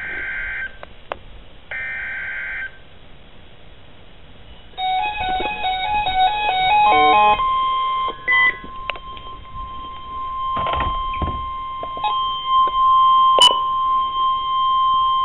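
NOAA Weather Radio receiver sounding an Emergency Alert System tornado warning. It opens with two one-second bursts of the screechy digital header tone. About five seconds in comes a quick run of stepping beeps, then the steady single-pitch warning alarm tone, with a sharp click near the end.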